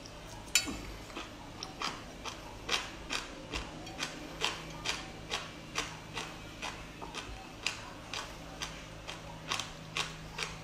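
Chewing of raw marinated sea anemone: a regular run of sharp clicks, about two a second.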